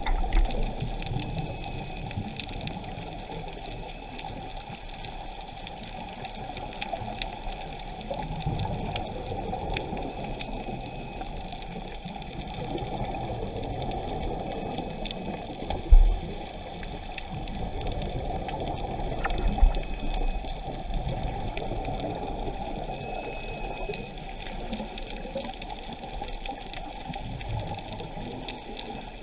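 Muffled underwater noise of a scuba diver's exhaled bubbles and moving water, heard through a camera's underwater housing, with a low thump about halfway through and a smaller one a few seconds later.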